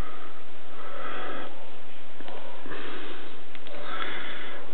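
A person breathing through the nose close to the microphone, three hissy breaths, with a few faint handling clicks.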